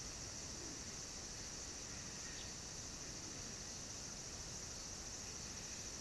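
Steady high-pitched insect chorus, an unbroken drone from the trees, over a low hum of outdoor background noise.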